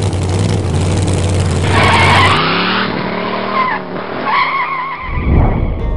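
Car engine running hard with tyres squealing, the squeals as wavering screeches about two seconds in, near the middle and again a little later; the low engine rumble drops away in between and comes back near the end.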